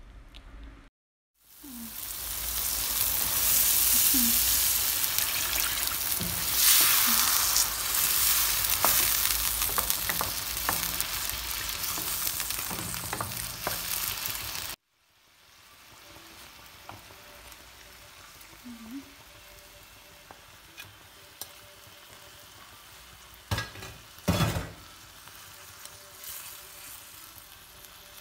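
Spice masala with chopped tomatoes sizzling loudly in hot oil in a frying pan as it is stirred, with scrapes of the spoon against the pan. About halfway through it drops to a quiet simmer with a few knocks of the spoon on the pan.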